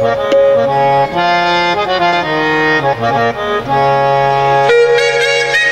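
Instrumental music: a harmonium playing sustained chords that shift every second or so.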